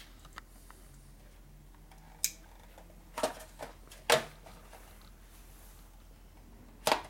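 Several short, sharp taps and clicks as small items are handled and set down on a workbench, the loudest about four seconds in and another near the end.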